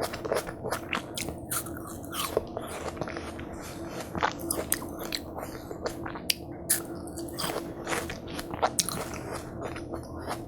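Close-miked eating of watermelon hwachae: wet crunching bites and chewing, with many quick irregular smacks and clicks.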